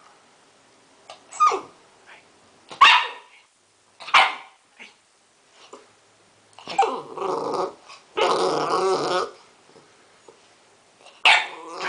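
Seven-week-old pit bull puppy giving short, sharp barks, then two longer growls of about a second each around the middle, and one more bark near the end.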